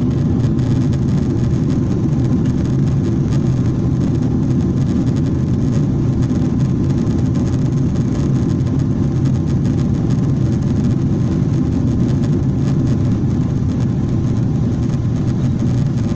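Steady, loud cabin noise of a Boeing 777-300ER climbing after takeoff, heard inside the cabin: the deep, even rumble of its GE90-115B engines and the airflow.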